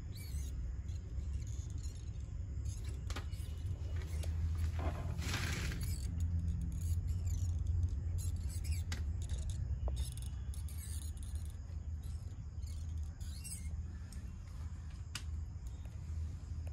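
Side cutters stripping and trimming thin electrical wire: scattered small clicks and a brief scrape, over a steady low rumble.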